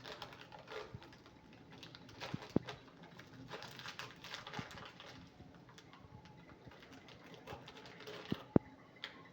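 Quiet room with a few faint sharp clicks, the loudest about two and a half seconds in and again near the end.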